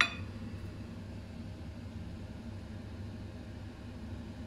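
A single short clink right at the start, then a steady low mechanical hum with no change in pitch or level.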